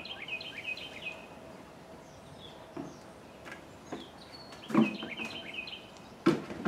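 A songbird singing quick chirping trills twice, with a few knocks and clunks in between, the loudest two near the end.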